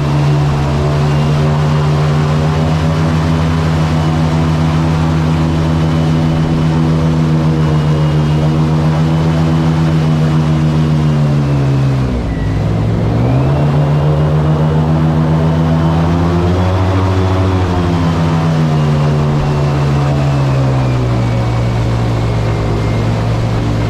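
Boat's outboard motor running under way at steady speed. Its pitch drops sharply about halfway through and comes straight back up, then swells briefly a few seconds later.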